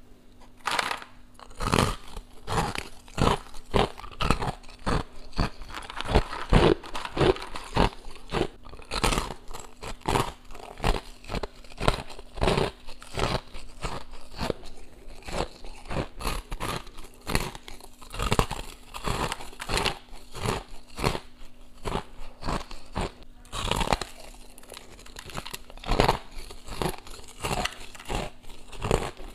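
Biting and chewing of chunks of powdery freezer frost, close to a clip-on microphone: a continuous run of crisp crunches, a few each second.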